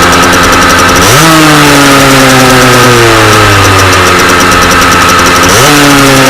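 Rieju RR motorcycle engine blipped twice, about a second in and again near the end. Each time the pitch jumps up fast and then slowly falls back toward idle.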